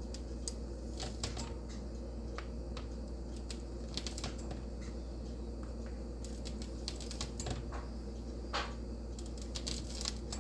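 Pizza cutter being run through setting hard candy to score it, making scattered, irregular light clicks and taps. A steady low hum runs underneath.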